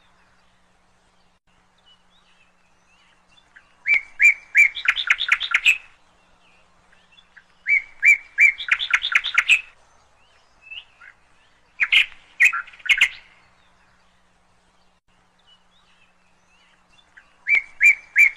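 A bird calling in short bursts of quick chirping notes, four times a few seconds apart, with quiet pauses between.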